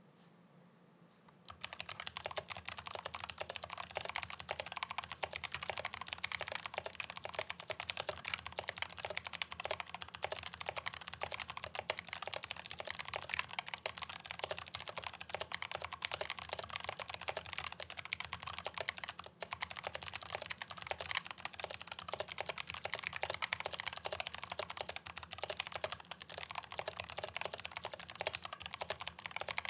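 Fast continuous typing on a mechanical keyboard with Kailh Box Pale Blue clicky switches in a walnut wood case, a dense stream of sharp key clicks. The typing starts about a second and a half in and breaks off briefly just after the middle.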